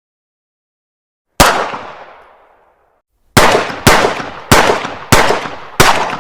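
9mm pistol firing: a single shot about a second and a half in, with a long echoing tail, then a quick string of five shots roughly 0.6 s apart near the end, each trailing off in echo.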